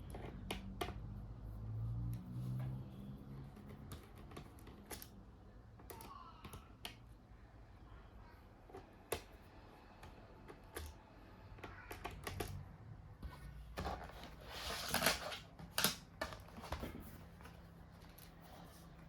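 Scattered small clicks and taps of hands working on the laptop's internals, with a short rustling scrape and two sharper clicks near the end.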